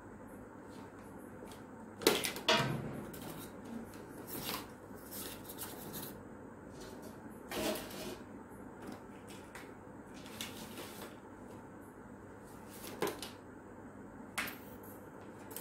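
Sporadic sharp clicks and knocks of parts being handled on a workbench, the loudest pair about two seconds in, then a few single clicks spread out with light rustling between.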